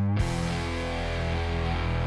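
Background rock music led by electric guitar, with a new held chord section starting a moment in.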